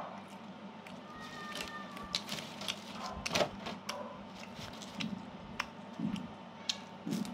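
A person chewing a crisp snack close to the microphone: irregular small clicks and crunches, with a faint steady hum underneath.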